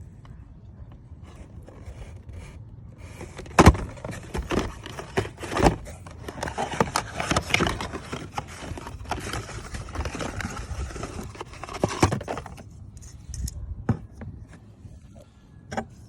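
Irregular metallic clinks, knocks and scraping, the sound of tools and parts being handled, busiest from a few seconds in until about three-quarters through, with a few single clicks after.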